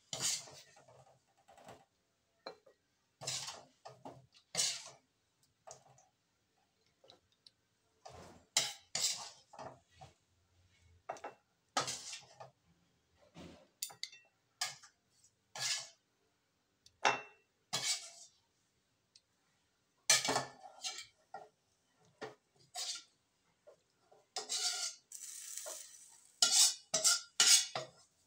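Metal ladle scraping and clinking against a cooking pot as braised chicken feet and sauce are scooped out and set onto a ceramic plate, in irregular short clatters with a longer scrape near the end.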